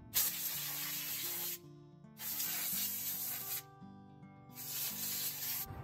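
Compressed air blasting from an air-hose nozzle onto a chainsaw, in three bursts of hiss each a second or so long.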